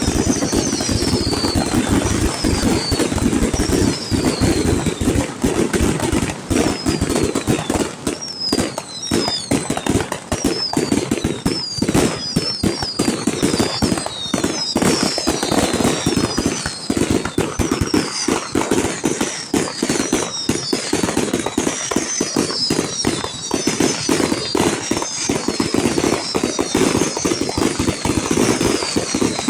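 Fireworks going off in a dense, continuous run of rapid crackling and popping, with many short falling whistles mixed in.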